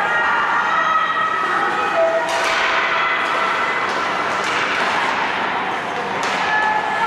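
Ice hockey game sound: several voices calling and shouting over the noise of the rink, with a few sharp knocks of sticks or puck against the ice or boards.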